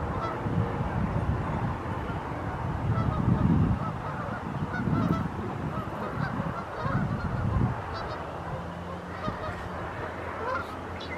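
A flock of sandhill cranes calling, with many short calls overlapping.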